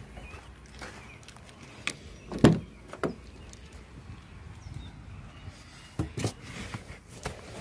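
Driver's door of a Toyota Tacoma pickup being unlatched and opened, with one loud clunk about two and a half seconds in and a smaller knock just after. A few more knocks of handling come near the end.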